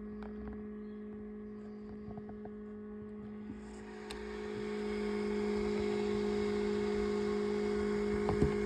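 A steady hum with a low tone and a second tone above it, growing louder about four seconds in.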